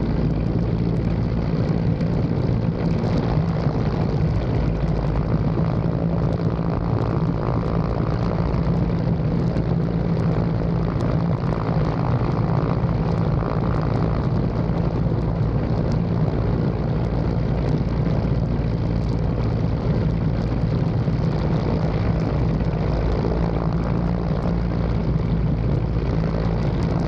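Helicopter in low flight: loud, steady rotor and engine noise with a deep, even hum.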